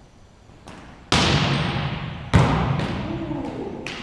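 A volleyball being struck in a rally: two loud hand-on-ball slaps about a second and a quarter apart, with fainter hits before and after, each echoing around a large gymnasium.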